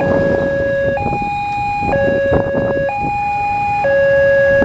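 Railway level-crossing warning alarm sounding its two-tone electronic signal, a lower and a higher tone taking turns about once a second, over road traffic noise; it signals that the barriers are down for an approaching train.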